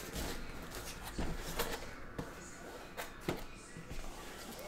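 Small cardboard boxes of Topps Clearly Authentic baseball cards being handled and set into stacks on a tabletop mat: several light taps and knocks, spaced irregularly about a second apart.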